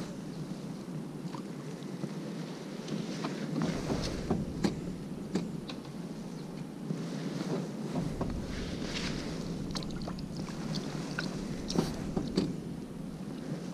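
Wind noise on the microphone: a steady hiss with a low rumble that drops away and returns in gusts. A few scattered sharp clicks or taps sound over it.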